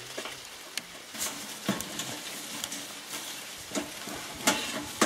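Crackly rustling and handling noise with scattered sharp clicks and knocks, the loudest near the end, from hands working a small solar water pump, its hose clamp and its hose.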